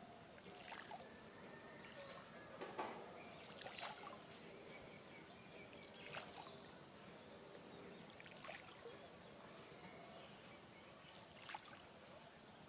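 Faint, scattered small splashes of hand-thrown bait feed landing on a pond's surface, about six soft ticks spread out, the sharpest nearly three seconds in.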